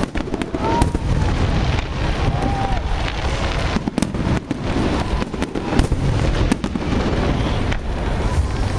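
Aerial fireworks going off: a rapid, irregular series of sharp bangs and booms with crackling in between, over a continuous low rumble.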